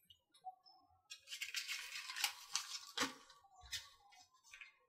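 Faint rustling and light clicks of small plastic kit parts being handled and set down on a paper instruction manual, busiest for about two seconds in the middle, with a few scattered ticks near the end.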